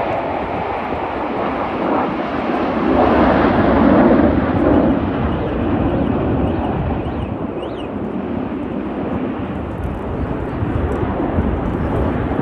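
Jet noise from Blue Angels F/A-18 Super Hornet jets flying past, building to a peak about four seconds in and then easing off into a steady rumble.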